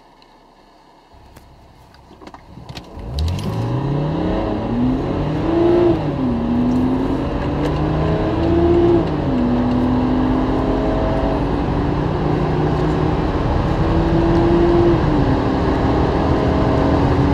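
BMW straight-six engine accelerating hard from a standstill. About three seconds in the revs start climbing, and the pitch drops sharply at each of three upshifts before rising again.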